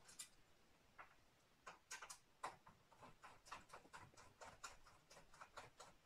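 Faint, irregular clicks of a screwdriver turning screws out of an all-in-one PC's stand, a few each second.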